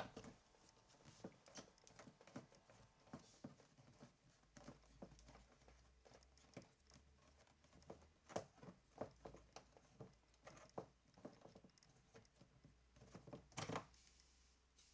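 Faint, irregular clicks and taps of a socket wrench and door parts being handled as the door's bolts are undone with a 10 mm socket, with one louder knock near the end.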